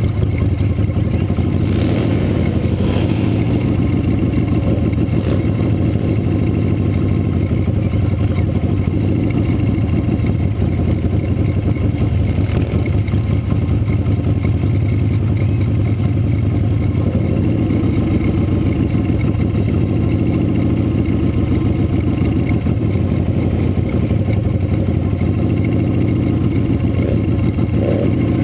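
Motorcycle engine running steadily at low parade speed, a continuous low throb with no revving, picked up by a camera mounted on the bike itself.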